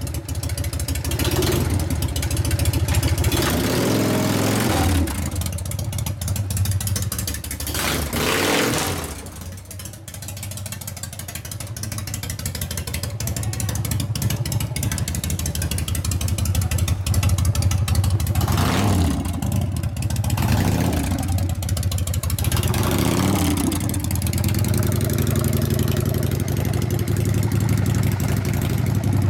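Harley-Davidson 80 cubic inch Evolution V-twin motorcycle engine running on a road test, its pitch climbing and dropping several times as it is revved up through the gears. The sound fades for a few seconds about ten seconds in, then builds back up.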